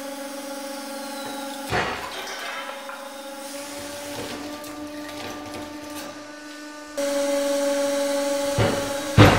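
Hydraulic press's pump hums steadily while the ram crushes a perforated red clay brick, which gives a sharp crack about two seconds in and then crackles as it breaks apart. After a sudden jump to a louder hum, a concrete brick under the ram cracks twice near the end, the second crack the loudest sound here.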